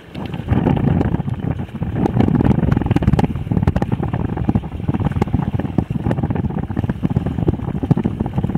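Wind buffeting the microphone: a loud, uneven, crackling rumble that sets in suddenly.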